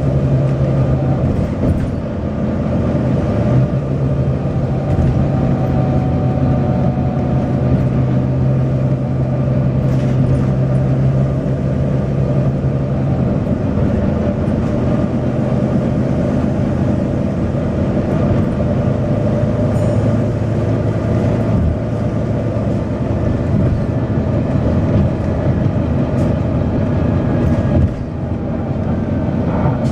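Volvo B9TL double-decker bus's six-cylinder diesel engine running with continuous engine and road rumble. A steady low engine drone holds for about the first half, then the rumble changes and turns rougher.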